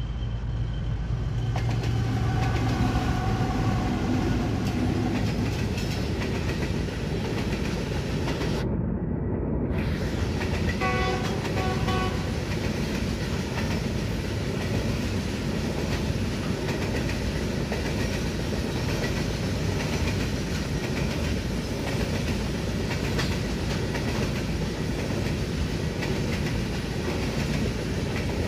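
A diesel locomotive passes with its engine running, and then a long train of loaded coal hopper wagons rolls by, its wheels clattering steadily over the rail joints. About eleven seconds in, the locomotive horn gives two short blasts.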